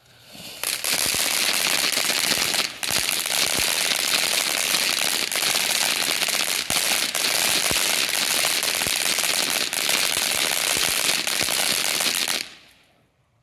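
A string of firecrackers going off in dense, rapid crackling pops for about twelve seconds, stopping abruptly near the end.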